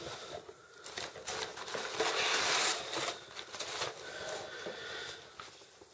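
Rustling and clicking from plastic tubs and packing material being handled, loudest about two seconds in.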